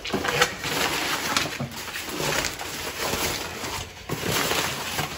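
Plastic trash bag and long paper strips rustling and crinkling as they are handled and stuffed into the bag, with short crackles throughout.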